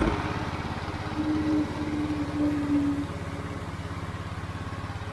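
Small single-cylinder 212cc petrol engine of a Maijo Weima mini power tiller running steadily. A short steady tone sounds over it in three pieces from about a second in, and the engine is a little quieter after about three seconds.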